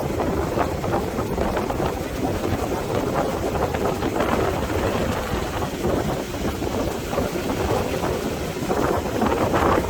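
Strong wind buffeting the microphone, coming in gusts over the wash of ocean surf.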